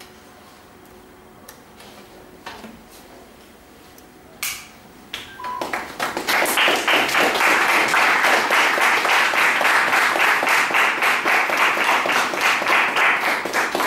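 Audience applause: a few scattered knocks, then clapping breaks out about five and a half seconds in and quickly builds to steady, dense clapping.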